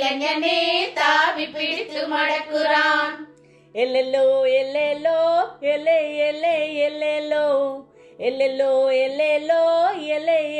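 A group of women singing a Tamil folk song together, in sung phrases broken by short pauses about three and a half and eight seconds in.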